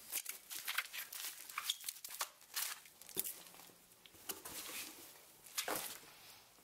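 Bubble wrap crinkling and foam packing peanuts rustling as a bubble-wrapped package is pulled out of a cardboard box, in irregular crackles that come thickest in the first few seconds.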